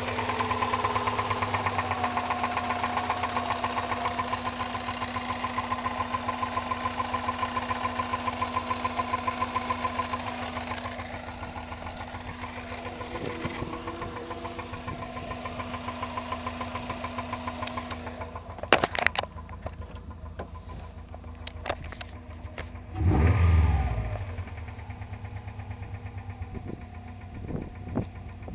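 Subaru Liberty's boxer engine running with an even, rhythmic knock, loudest in the first ten seconds. About two-thirds of the way through, a few sharp clicks, then a brief loud low swell a few seconds later.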